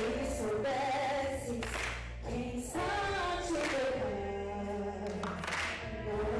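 A woman singing a gospel song solo into a microphone, in held notes that slide in pitch, over a faint musical accompaniment.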